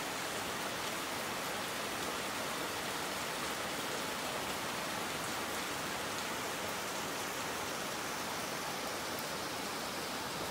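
Steady rain falling on tiled roofs and leaves: a constant, even hiss with a fine patter of drops.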